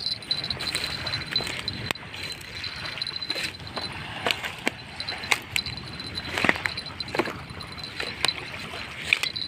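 Footsteps crunching over dry driftwood, bamboo stalks and plastic litter, an irregular run of cracks, snaps and clinks. A thin steady high-pitched whine sits underneath.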